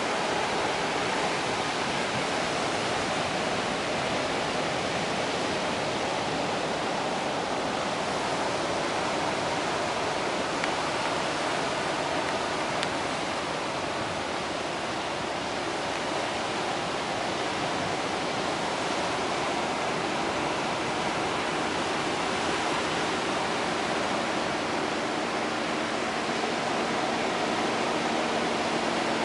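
Ocean surf breaking and washing onto a rocky shore, a steady rushing wash with no separate crashes standing out. A faint low hum joins about two-thirds of the way through.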